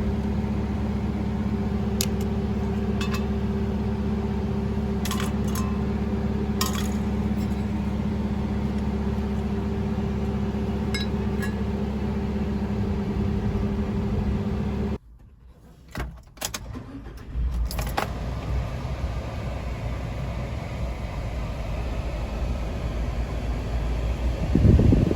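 Suzuki Every van's engine running steadily, with sharp metallic clicks and rattles scattered over it. The engine sound cuts off abruptly about fifteen seconds in, and after a short gap a different steady whirring noise follows.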